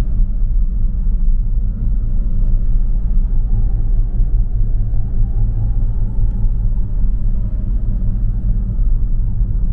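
Steady low rumble of a car on the move, engine and road noise with no sudden events.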